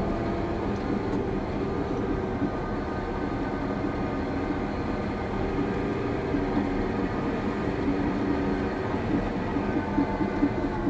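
Caterpillar D6 crawler dozer running steadily as it pushes trash, its diesel engine droning under load with the clatter of its steel tracks.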